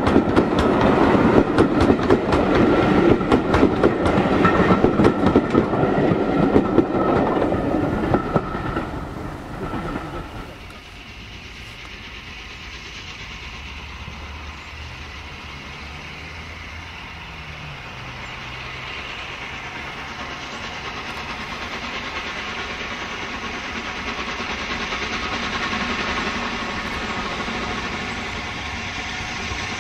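Steam-hauled passenger coaches pass close by, wheels clicking rapidly over the rail joints. About ten seconds in this gives way to a quieter, distant LNER Peppercorn A1 Pacific 'Tornado' working a train towards the listener, its sound growing steadily louder.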